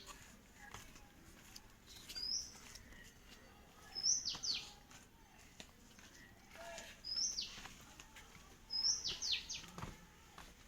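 A songbird repeating a short high call four times, a couple of seconds apart: each a brief note followed by one or two quick falling whistles.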